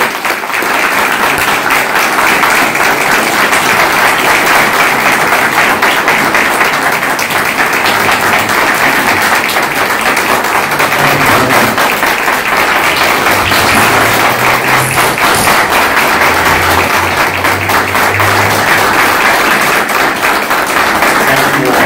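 Crowd applauding with dense, steady clapping.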